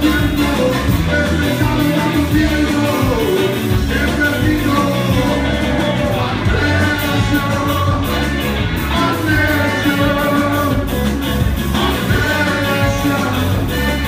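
A live band playing loud rock music with a lead singer, heavy bass, drums and electric guitar, picked up by a phone's microphone from among the crowd.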